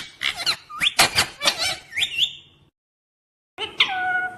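Pet parrot chirping and squawking in quick calls that sweep sharply up and down in pitch, mixed with short clicks. The sound drops to dead silence for about a second, then drawn-out calls that fall in pitch resume.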